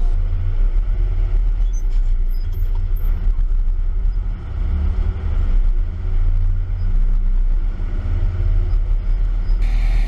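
Tractor diesel engine running steadily as it drives along a field road, heard from inside the cab as a dense low rumble. Near the end the sound turns brighter and hissier.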